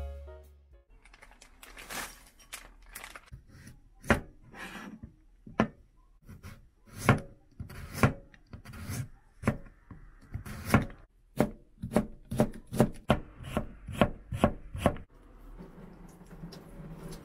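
Kitchen knife slicing a carrot on a cutting board: a string of sharp cutting strokes, irregular at first, then quicker and more even, at about three a second, from around eleven seconds in. About fifteen seconds in, the strokes stop and water is poured from a cup over a sheet of aburaage in a plastic colander, rinsing off its oil.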